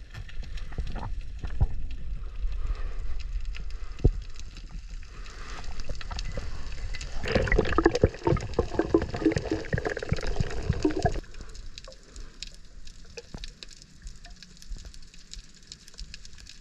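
Underwater audio on a reef: water moving and gurgling around the camera with scattered clicks, a louder stretch of bubbling and gurgling from about seven to eleven seconds in, then quieter with only faint clicks and crackles.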